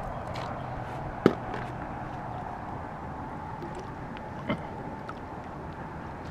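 Steady rush of water from a dam spillway, with one sharp click about a second in and a softer knock a little past the middle.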